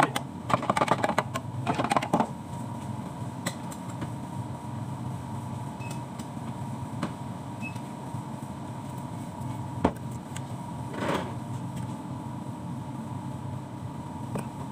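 A metal bar spoon stirring milk tea in a plastic shaker cup, clinking rapidly against the cup for about two seconds near the start. After that a steady appliance hum runs on, with a few single knocks of the spoon and cups.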